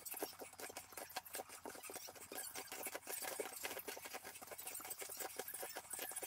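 Bare feet thudding quickly and evenly on a foam yoga mat during mountain-climber exercises, a fast steady rhythm of soft footfalls.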